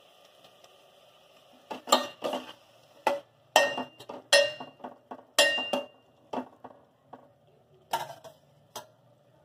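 Steel ladle clinking and scraping against a steel pot and a stainless pressure cooker as boiled chickpeas are scooped across and stirred in: a string of sharp metallic clinks, some ringing, starting about two seconds in and stopping near the end.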